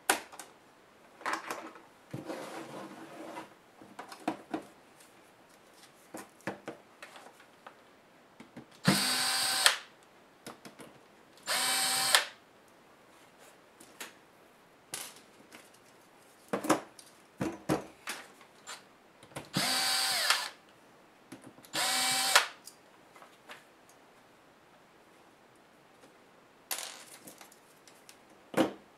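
A small electric screwdriver runs in four short bursts of under a second each, in two pairs about ten seconds apart, driving out screws from a laptop's screen assembly. Between the bursts come light clicks and clatter from handling plastic and metal parts.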